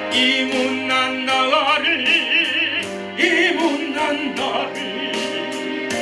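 A man singing a Korean gospel ballad with heavy vibrato over keyboard accompaniment. A long, wavering held phrase gives way to the next sung line near the end.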